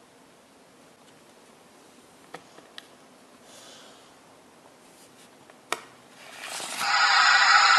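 A few faint clicks as a collectible card is handled at a small plastic Super Animals card reader. About seven seconds in, the reader's small speaker starts playing its sound for the Gaboon viper card, much louder than the handling.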